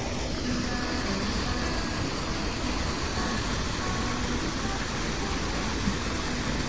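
River water pouring over a small concrete weir into a pool, a steady rushing with no change in loudness.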